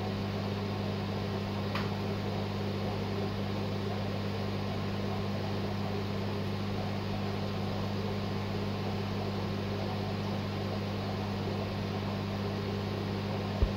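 Steady low electrical hum over a constant hiss from running aquarium equipment.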